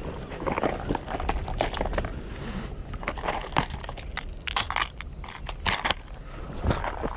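Clear plastic lure box being handled and rummaged through: a run of sharp clicks, clatters and scrapes of plastic and lures, with fabric from a sleeve rubbing close to the camera.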